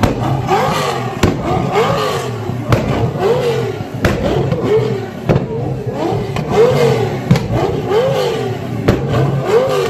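Lamborghini Gallardo's V10 being blipped over and over, each rev rising and falling about every three quarters of a second, with sharp pops and bangs from the exhaust as it spits flames.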